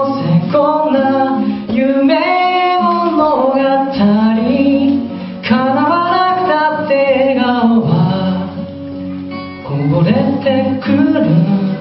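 A man singing a slow melody with long held, sliding notes to his own strummed acoustic guitar. The voice drops out for a moment about eight seconds in while the guitar carries on.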